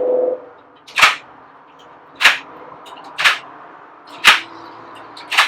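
Triple-lock security screen door lock being worked to test it: five sharp mechanical clacks about a second apart as the lock is operated.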